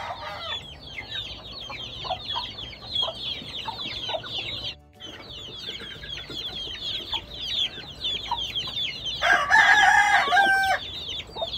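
Chickens calling: a steady chatter of short, high falling chirps, with a rooster crowing once, about a second and a half long, about nine seconds in.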